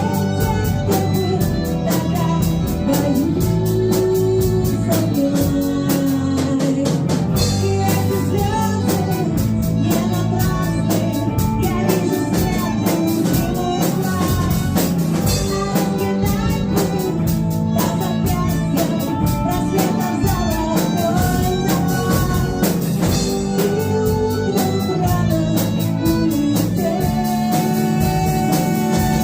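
Band music: a drum kit keeping a steady beat under guitar and a moving melody line.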